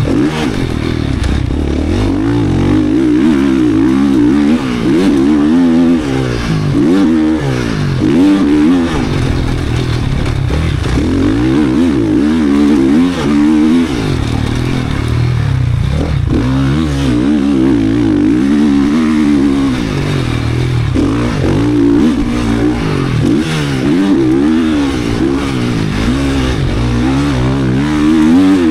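GasGas 450 motocross bike's race-built four-stroke single-cylinder engine being ridden hard. It revs up again and again with the throttle wide open, its pitch climbing and then dropping back at each shift or throttle-off.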